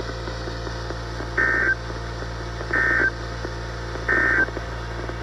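NOAA Weather Radio SAME end-of-message signal: three short bursts of warbling digital data tones, evenly spaced about 1.4 seconds apart, marking the close of the alarm test broadcast.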